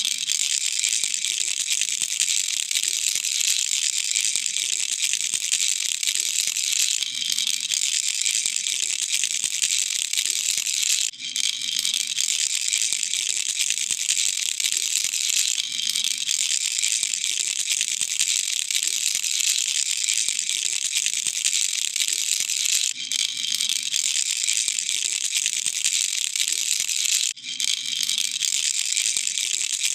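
Baby rattle shaken continuously: a dense, steady rattling with a few brief breaks.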